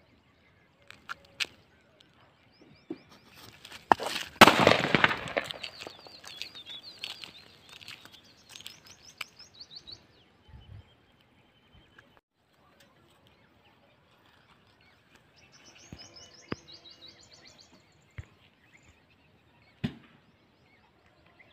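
A 'Money Bank' novelty firework box going off: a few small pops, then a dense burst of crackling about four seconds in as it blows out confetti and paper notes. The crackling thins into scattered pops, and a few more crackles and a last sharp pop come later.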